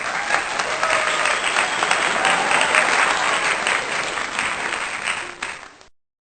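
A crowd applauding: dense clapping that fades away about six seconds in.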